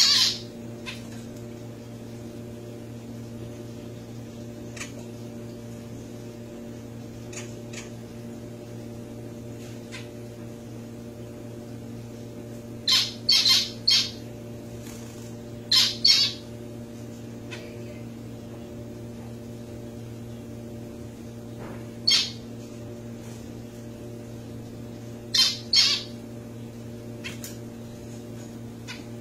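Zebra finches giving short, loud calls at irregular moments, several in quick runs of two or three, over a steady low hum.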